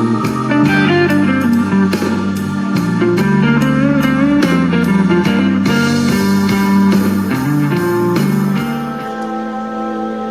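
Blues-style music with slide guitar over a steady beat, played back on a portable Bluetooth speaker for a bass test. The low bass line drops out about nine seconds in.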